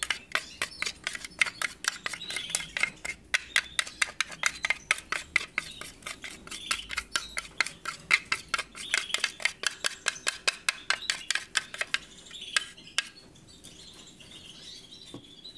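A spoon stirring a paste of hand-feeding formula mixed with water in a small plastic dish, clicking and scraping rapidly against the sides to break up any leftover powder. The stirring stops about twelve seconds in.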